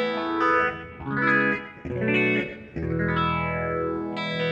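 Clean electric guitar chords played through a Korg AX3000G multi-effects processor with its dual phaser switched on at a slow speed, giving a slow sweeping tone. Several chords are struck in turn, about one a second.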